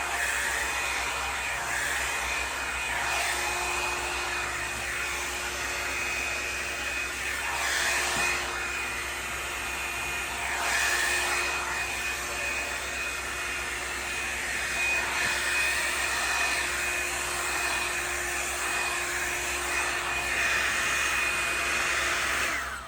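Revlon One-Step Volumizer hot-air brush dryer running, a steady rush of air with a thin high whine, swelling and easing every few seconds. It cuts off suddenly right at the end.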